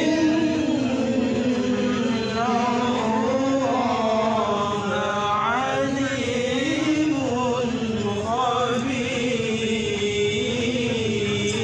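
Melodic Qur'an recitation (tilawah) by male reciters through handheld microphones: long held notes with ornamented runs that rise and fall.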